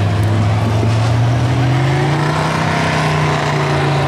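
Engine running steadily, its pitch rising slightly about halfway through and then holding.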